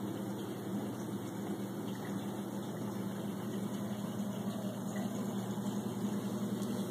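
Steady low hum of aquarium equipment running, with a light hiss over it.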